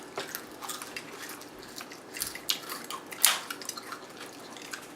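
Wet chewing and mouth sounds of someone eating pickled vegetables: a run of small clicks and squishes, with one sharp click a little over three seconds in.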